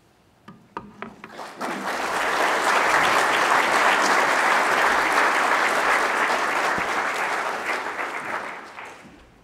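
Audience applauding: a few scattered claps at first, swelling into full, steady applause about two seconds in, then dying away near the end.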